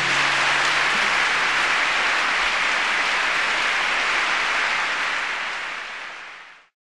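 Audience applause at the close of a live song recording: a steady, even clapping wash that fades and cuts off near the end.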